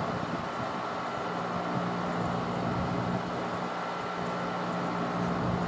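Steady low mechanical hum with a faint thin high tone, unchanging throughout.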